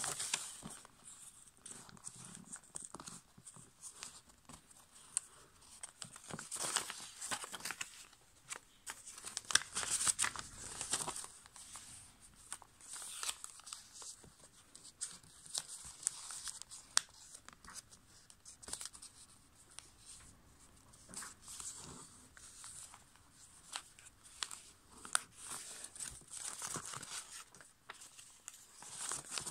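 Sheet of copy paper being folded by hand into a paper airplane: irregular crisp rustling and crinkling as folds are made and pressed flat, with many short sharp clicks.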